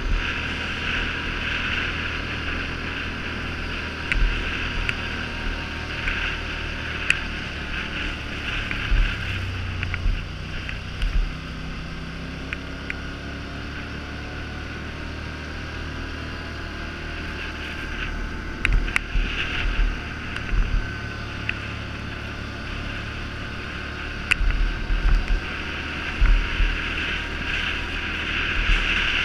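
Polaris Sportsman 850 ATV running at a steady trail speed on gravel, with wind buffeting the helmet-mounted microphone and scattered sharp ticks of gravel.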